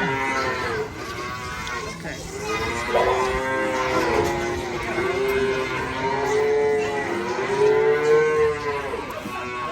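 Dairy calves bawling, a run of long drawn-out calls one after another, from calves hungry for their bottles.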